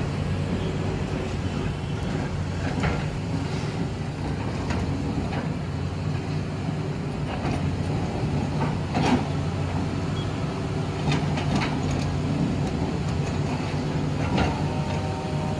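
Mobile crane's diesel engine running steadily, with a few sharp knocks and clanks at irregular times. A faint steady whine joins near the end.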